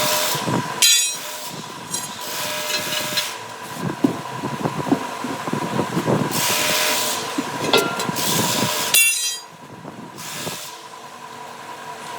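Compressed air hissing in several bursts of up to a second each, with short metallic rattles about a second in and again about nine seconds in, over a steady faint whine.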